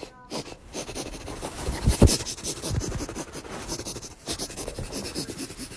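Quick, noisy sniffing close to the phone as a person sniffs at a dog's face, mixed with rustling of fur and fabric against the phone, and a dull thump about two seconds in.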